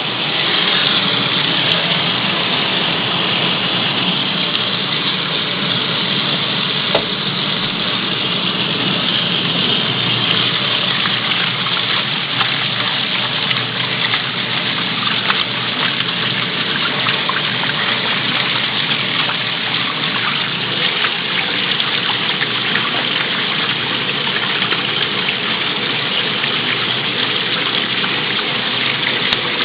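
Water rushing steadily inside a Mueller 10 kg washing machine during its fabric-softener rinse, swelling about half a second in and then holding even.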